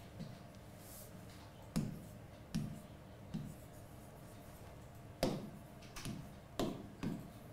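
Pen writing by hand on an interactive whiteboard: a series of about seven short knocks and taps as the strokes of the letters land on the board.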